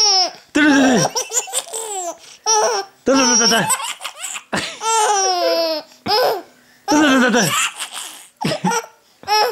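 Baby laughing hard in a string of peals with short breaths between, many of the peals sliding down in pitch.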